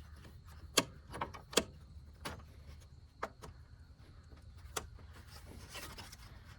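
Scattered sharp clicks and light knocks of car parts being handled and fitted while an A/C condenser goes into place, the loudest two about a second and a second and a half in, over a faint steady low hum.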